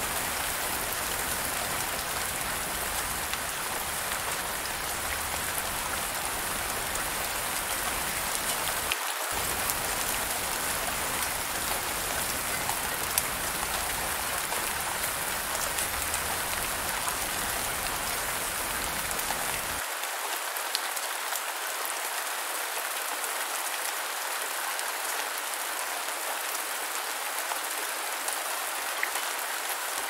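Heavy rain falling on a water surface: a steady, dense hiss of countless drops, with a few sharper individual drop ticks. A faint low rumble underneath stops about two-thirds of the way through.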